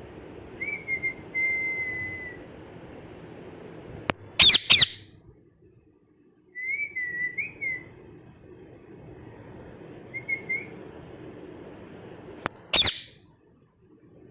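Ringneck parrot giving soft short chirps, broken by loud sharp screeches: two in quick succession about four seconds in and one more near the end.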